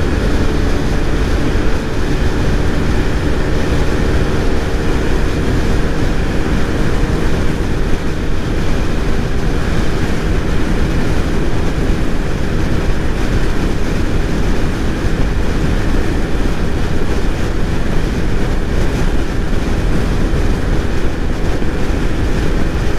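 Piaggio Medley 125 scooter's single-cylinder four-stroke engine held at full throttle at top speed, about 100 km/h, under heavy steady wind rush on the helmet-side microphone.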